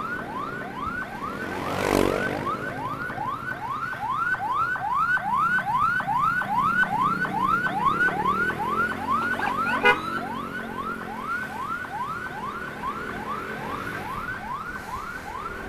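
Electronic emergency siren on a fast yelp, a rising sweep repeating about three times a second. There is a brief rushing swell about two seconds in and a short pulsing beep about two-thirds of the way through.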